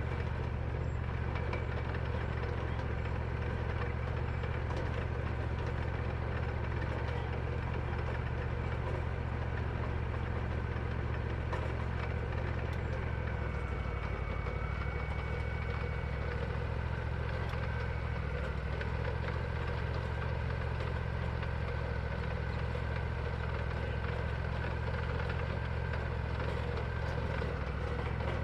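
Wood-Mizer LT40 band sawmill running steadily through a pass in shagbark hickory, its engine a constant drone. A faint high whine joins about halfway through.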